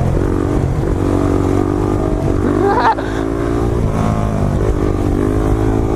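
Motorcycle engine pulling hard through the gears: its pitch climbs, drops back at each upshift, and climbs again several times.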